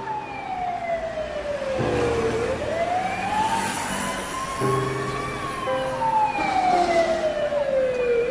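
A siren wailing slowly. Its pitch falls over about two seconds, climbs over about three, then falls again. Sustained music chords sound beneath it.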